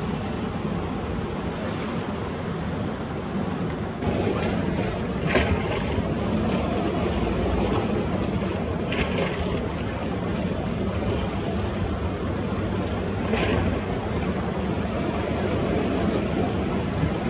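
Sea surf washing steadily, with wind on the microphone. A brighter hiss of breaking wash comes about every four seconds, and the sound steps up a little about four seconds in.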